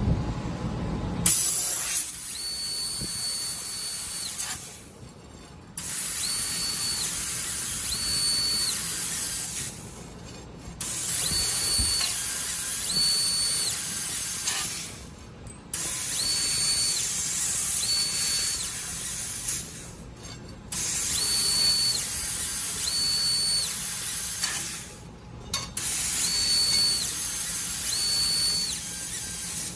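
DAHAN LF-G3015 laser tube cutting machine cutting round steel tube: a steady hiss runs in stretches of about four seconds, broken by short pauses roughly every five seconds, one for each cut. A thin high tone switches on briefly twice during each stretch.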